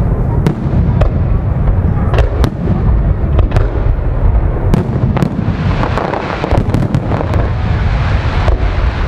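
Aerial firework shells bursting in quick succession: sharp bangs over a continuous deep rumble of booms, with dense crackling setting in about halfway through.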